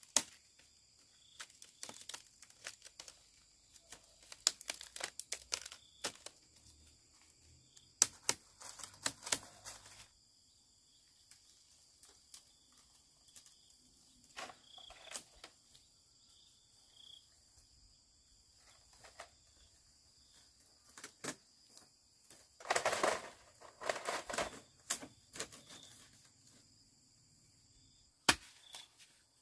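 Scattered sharp knocks and clicks, coming in clusters, with a denser stretch of scraping and rustling about two-thirds of the way through and a faint steady high hum underneath.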